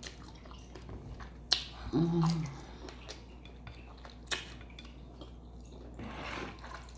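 Close-up mouth sounds of someone eating a seafood boil: wet chewing and smacking with sharp clicks. A short low voiced sound comes about two seconds in, and a brief hissing suck comes near the end.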